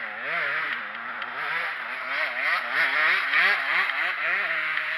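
Dirt bike engine revving up and down over and over, its pitch rising and falling about twice a second.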